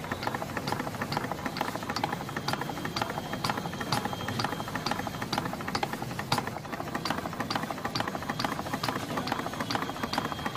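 Homemade single-cylinder petrol engine running fast, its big flywheel spinning. A steady mechanical clatter, with sharp ticks about twice a second.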